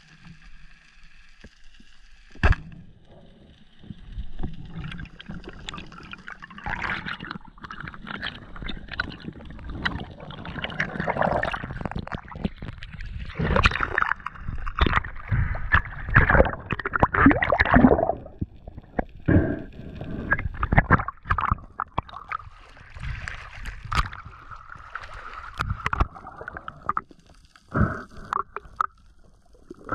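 Underwater sound of a speargun shot and a speared Spanish mackerel fighting on the line: a sharp crack about two and a half seconds in, then irregular rushing, bubbling water and knocks as the fish struggles, loudest in the middle. A faint steady whine sits underneath before the shot and again near the end.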